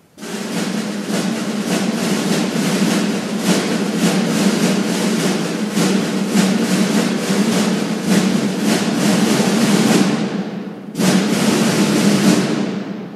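A band's percussion section playing a sustained snare drum roll, with the bass drum underneath. The roll breaks off for a moment about ten seconds in, then picks up again.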